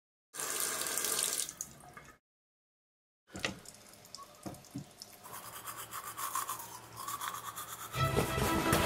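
A toothbrush scrubbing for about a second, then after a second of silence, a plastic toothbrush clicking and scraping against a sink with scattered small knocks. Music starts near the end.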